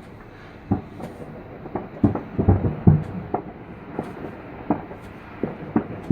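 Fireworks going off: about a dozen short, irregular bangs and pops, with a quick cluster two to three seconds in.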